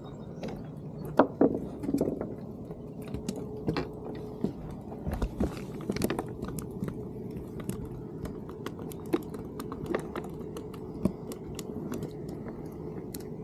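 Irregular clicks, taps and knocks of close-up handling, over a steady low hum.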